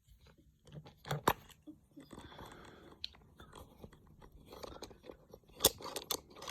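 Hands handling mounting gear: rustling and shuffling with sharp clicks and knocks, the two loudest about a second in and near the end.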